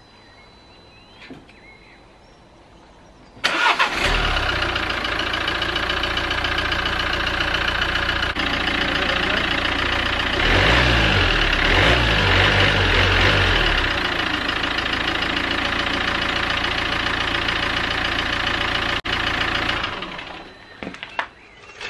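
Nissan Qashqai diesel engine starting suddenly about three and a half seconds in, on its first start after an oil and filter change, then idling steadily. It runs a little louder for a few seconds in the middle, then settles back.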